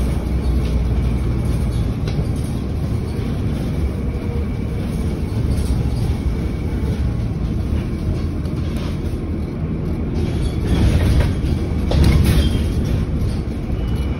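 Transit bus heard from inside the cabin while under way: a steady engine and road rumble with occasional knocks from the body, swelling louder briefly about eleven and twelve seconds in.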